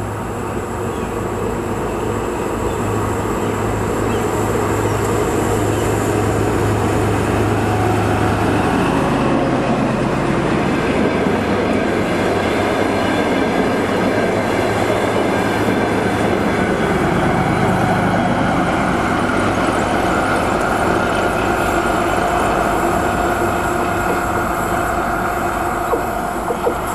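DR1A diesel multiple unit passing close by: a steady low diesel engine hum as the power car comes up, giving way about nine seconds in to the even rumble of wheels on the rails as the coaches go past, with a few knocks near the end.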